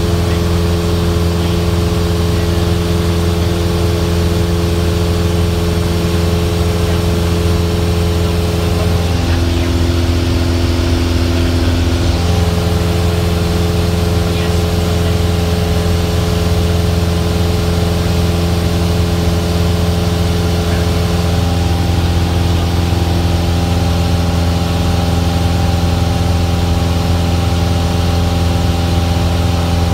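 Cessna single-engine piston aircraft's engine and propeller droning steadily, heard inside the cabin in flight. Its tone shifts briefly about nine seconds in and settles back about three seconds later.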